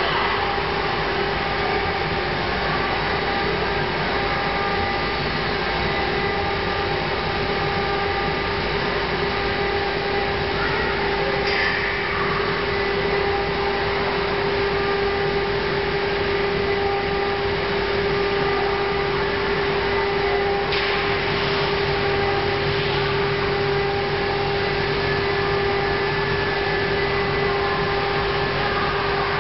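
The two spindle motors of a twin-head CNC router running together while the machine routes a board, with a steady whine over even machine noise.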